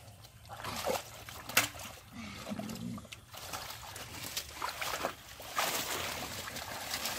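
Hands and legs sloshing and splashing in shallow muddy water among weeds, with a few sharp wet slaps, one louder than the rest about a second and a half in.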